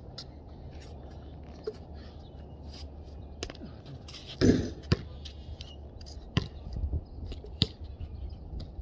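A basketball on an outdoor concrete court: one loud thud about four and a half seconds in, then single sharp bounces a second or more apart.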